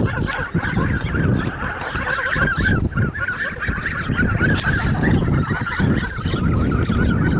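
A flock of young domestic geese calling: many short, overlapping calls without a pause, over a steady low rumble.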